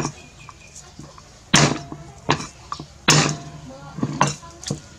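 A cleaver striking a chopping board while chopping garlic cloves. There are several knocks at uneven intervals, the loudest about one and a half and three seconds in, with lighter taps between.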